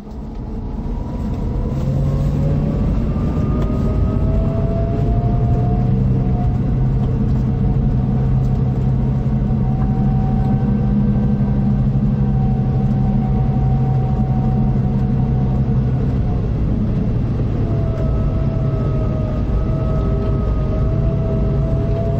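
Scania K440 coach's diesel engine running under load, fading in at the start. A whine over the engine hum climbs over the first few seconds and then holds steady; about three-quarters of the way through it breaks off and comes back lower.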